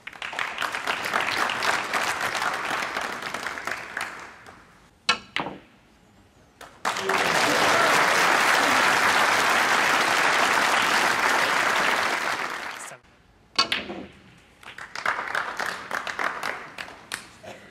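Snooker crowd applauding in three spells, the longest and loudest in the middle, with sharp clicks of balls colliding on the table in the gaps between.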